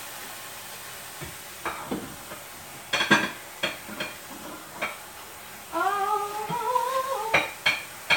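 Bowls and utensils clinking and knocking together as dishes are handled, in a series of short sharp clatters, loudest about three seconds in. Near the end a woman hums a short tune for about a second and a half, with a few more clinks around it.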